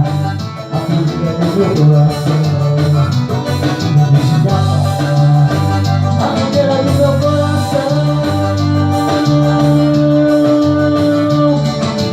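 Band music, an instrumental passage between sung lines, with a steady bass beat and one long held note in the second half.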